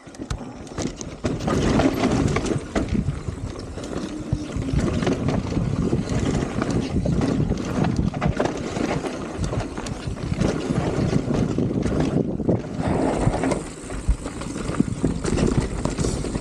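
Mountain bike riding down a rocky trail: wind rushing over the camera microphone, with the tyres crunching over rock and the bike rattling and knocking over the bumps.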